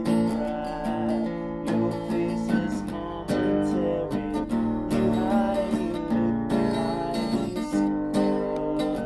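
Acoustic guitar strummed in a blues accompaniment, one strum after another with the chords ringing on.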